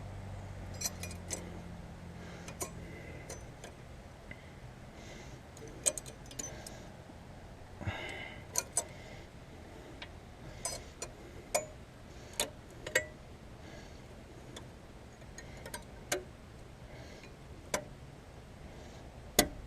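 Irregular small metallic clicks and clinks as brake pads and their clips are worked into a 2009 Subaru Impreza's disc brake caliper bracket. The pads stick and will not slide in.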